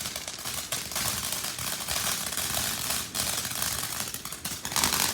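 Consumer firework fountain crackling: a dense, fast run of small pops and sizzling crackles that goes on without a break.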